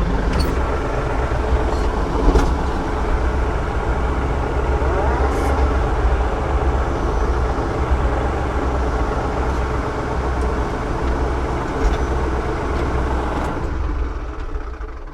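Tractor engine running steadily while the tractor backs up, with a few brief clicks and knocks; the engine sound fades out near the end.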